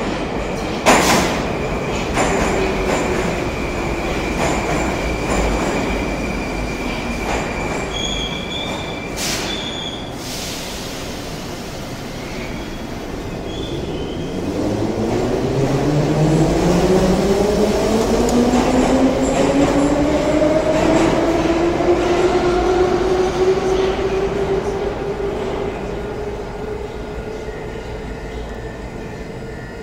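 Moscow metro 'Moskva' train coming to a stop at the platform, its brakes and wheels giving a steady high squeal with a couple of sharp knocks and then a hiss of air. Later the train accelerates away, and its traction drive gives a rising whine that climbs for about ten seconds and then levels off.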